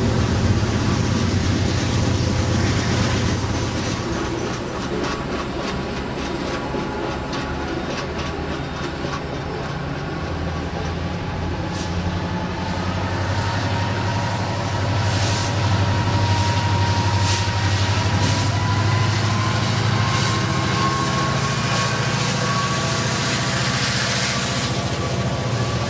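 Diesel locomotive working at high throttle: a steady low engine drone with wheels clicking over rail joints and a thin high whine that climbs slowly in pitch. The drone eases a little about a third of the way in and builds again.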